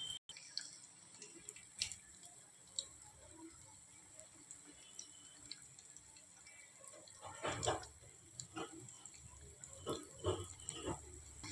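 Breaded paneer cubes deep-frying in hot oil: a faint steady sizzle with scattered pops, and a few louder bursts of crackling about halfway through and near the end.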